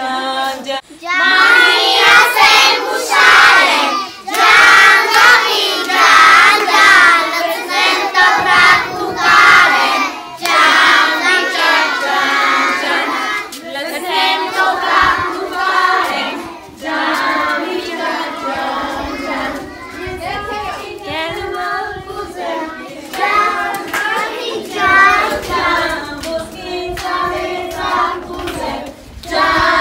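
A group of children and women singing together, phrase after phrase without pause, with hand clapping.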